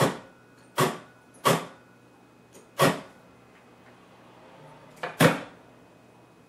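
Channel selector knob of a 1948 Admiral 30A12 television being turned step by step: six loud clicks as the switch snaps from position to position, at uneven intervals, two in quick succession about five seconds in. A faint steady hum runs underneath.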